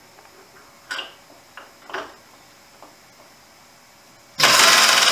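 A few light metal clicks as a tool holder is pushed up into the mill spindle. About four seconds in, a loud burst of over a second as the Aussie ADB-123 power drawbar's pneumatic ratchet runs, screwing the drawbar down into the tool holder to clamp it.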